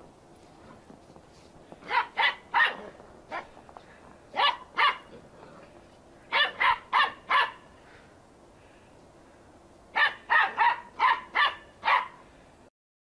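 A dog barking in short volleys of two to six barks, with pauses of a second or two between volleys.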